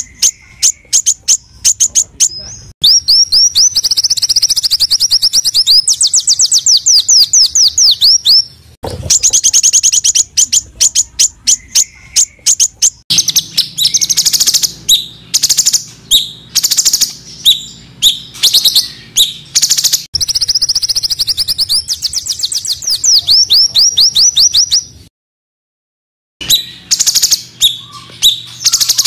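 Small songbirds singing harsh, rapid-fire song: fast trains of high, sweeping chirps, in abruptly spliced segments, broken by a silent gap of about a second and a half near the end.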